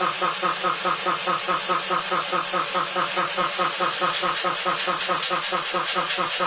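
Rebuilt single-cylinder Westinghouse piston air compressor running steadily, pumping with a rapid, even beat and a hiss of air.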